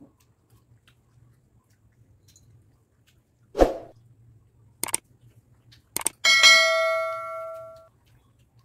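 Subscribe-button animation sound effects: a dull thump, two quick pairs of clicks, then a bell dinging once and fading over about a second and a half.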